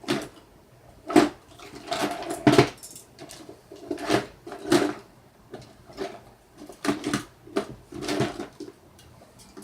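Someone rummaging through hard household objects, with irregular clatters and knocks, about a dozen in a loose, uneven run.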